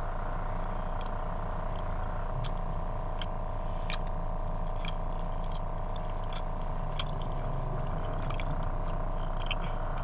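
A crunchy apple and almond cookie being bitten and chewed, small crunches every so often, over a steady mechanical hum in a car's cabin.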